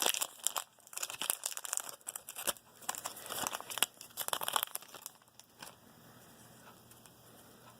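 Plastic wrapper of a baseball card pack being torn open and crinkled in the hands, an irregular run of sharp crackling that stops about five and a half seconds in.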